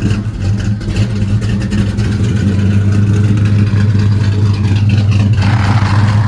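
A 1966 Chevrolet Caprice's engine idling steadily, with a deep, even exhaust hum. A short rushing noise joins it near the end.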